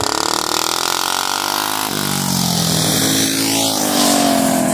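Racing lawnmower engines running hard as mow karts lap a dirt track, with one kart passing close about four seconds in, loudest as it goes by.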